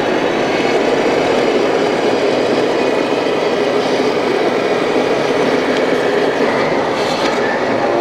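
Steady rolling rumble of RC model trucks, their sound modules playing simulated diesel engine noise, blended with the loud constant din of a busy exhibition hall.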